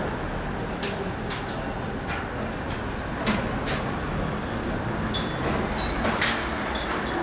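Street traffic noise, a steady rumble and hiss, with scattered sharp knocks and clicks and a short high squeal about two seconds in.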